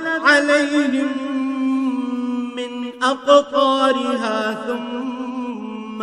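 A man chanting Qur'anic recitation in Arabic (tajwid), a single voice in melodic phrases with ornamented slides and long held notes.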